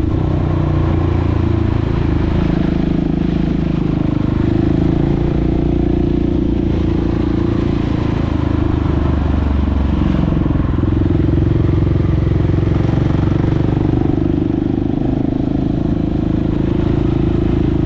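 KTM 690 SMC R's single-cylinder four-stroke engine running under way, heard on board, with the exhaust's dB-killer removed. Its pitch rises and falls a little as the throttle changes.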